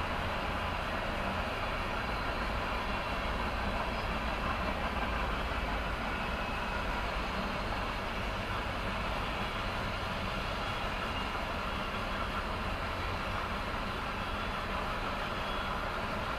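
Norfolk Southern mixed freight train rolling steadily past, its cars' wheels running on the rails with an even, continuous rumble and rail noise.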